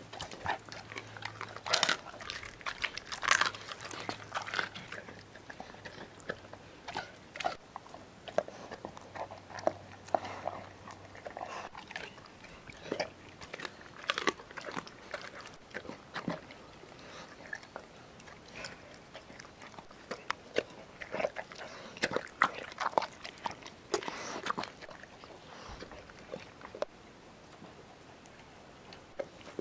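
Weimaraner crunching and chewing a raw meal of chicken and chopped vegetables, with irregular sharp crunches, the loudest in the first few seconds and again near the end.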